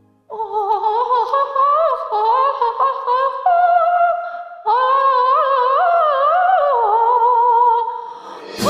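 A woman singing a high, wordless unaccompanied cadenza in two long runs, her pitch sliding and trilling, while the karaoke backing track is silent. Near the end the orchestral backing comes back in.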